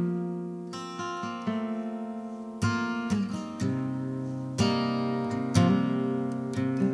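Acoustic guitar music: plucked chords, a new one about every second, each ringing and fading before the next.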